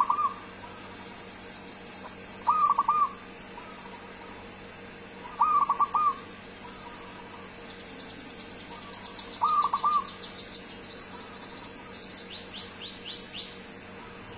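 Zebra dove (perkutut) cooing: four short phrases of quick, rolling coo notes, roughly three seconds apart. Fainter, higher-pitched trills and a short run of five falling chirps sound behind it near the end.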